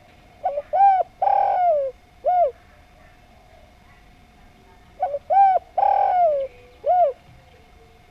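Spotted dove (derkuku) cooing its song twice, the same phrase each time: a short lead-in note, a rising-and-falling coo, a longer drawn-out coo, then a separate final coo, the two phrases about four and a half seconds apart.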